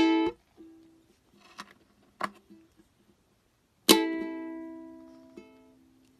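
Ukulele strings sounded by a cat brushing against them: a sharp strum at the start and another about four seconds in that rings out for over a second, with a few faint plucks between.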